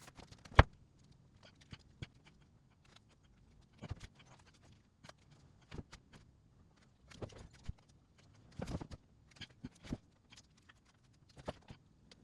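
Irregular knocks, clicks and short scrapes of things being handled, with one sharp knock about half a second in.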